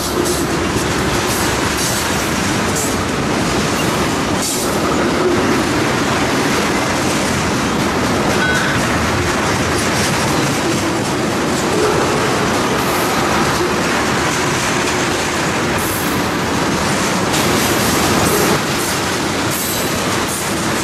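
Freight train of tank cars rolling past close by: a steady, loud noise of steel wheels running on the rails as car after car goes by.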